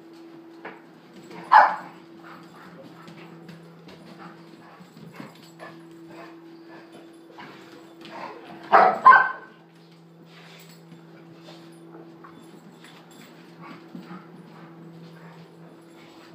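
Dogs playing: a sharp bark about a second and a half in and two quick barks around nine seconds, with faint yips, scuffles and paw clicks in between. A steady low hum runs underneath.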